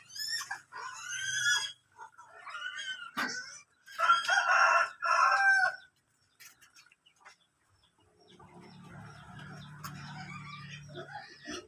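Broiler chickens calling: several short, high, pitched calls in the first two seconds and louder squawking calls from about four to six seconds in. After a pause, a low steady buzz runs for about three seconds near the end.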